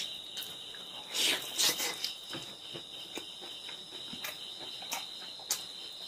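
Close-miked chewing and lip-smacking as fried pork with crispy skin is eaten by hand, with scattered short clicks and a louder wet mouth sound a little over a second in. Crickets trill steadily behind.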